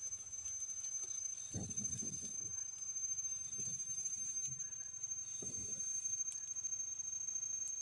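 A steady, high-pitched insect whine from the forest, with a few soft low thuds as the stick pile is handled.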